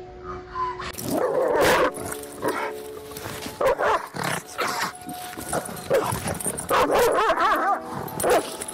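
A dog barking repeatedly, some barks drawn out with a wavering pitch.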